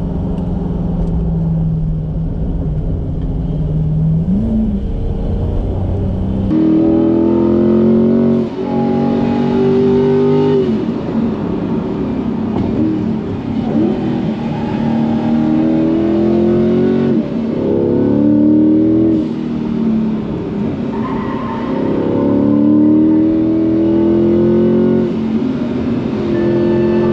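Twin-turbo C8 Corvette's V8 heard from inside the cabin: first a steady low drone with one brief rev about four seconds in, then, after about six seconds, hard acceleration on track with the pitch climbing and dropping at each upshift, easing off briefly around the middle before pulling again.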